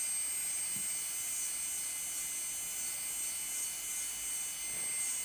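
Electric nail drill (e-file) running at about 15,000 rpm, its bit working the cuticle area of a fingernail, a steady high whine.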